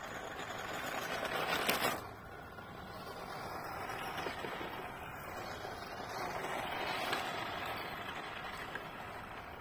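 Radio-controlled rally car (Tamiya CC-01 chassis) driving over loose gravel: the electric motor and gears whirring with the tyres crunching and scrabbling on the stones. It grows louder up to a peak just before two seconds in, drops off suddenly, then swells and eases again as the car drives about.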